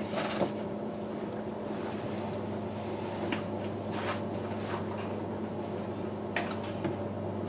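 Steady low electrical or fan hum, with a few soft clicks and rustles scattered through it as parts are handled.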